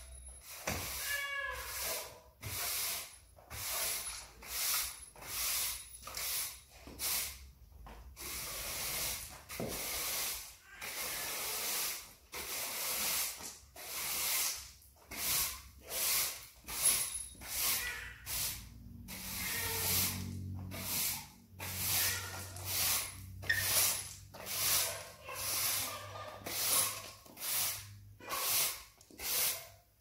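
Push broom sweeping dust and rubble across a bare concrete floor: repeated scratchy bristle strokes, about one a second.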